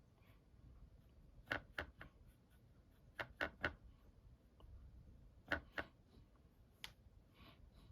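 Faint, light clicks and taps from handling painting tools, in small clusters of two or three about every second and a half.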